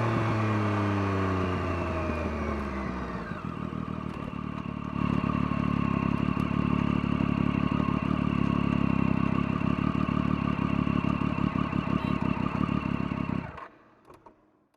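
Engine exhaust note through a Scorpion aftermarket exhaust: the revs fall away over the first few seconds, then it settles into a steady pulsing idle about five seconds in, and cuts off suddenly near the end as the engine is switched off.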